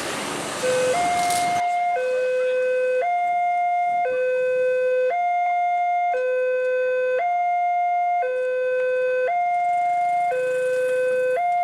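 Railway level-crossing warning alarm from the horn loudspeaker on the signal post: an electronic two-tone call, alternating low and high at about one second per tone, steady in level. It starts about a second in and signals that a train is approaching and the crossing is closing.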